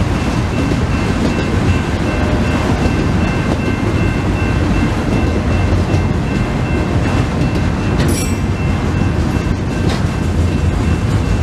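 Freight cars rolling steadily through a grade crossing: loud, continuous rumble and clatter of wheels on rail, with the crossing signal's bell ringing faintly. A brief high squeal of wheel flanges on the rail comes about eight seconds in.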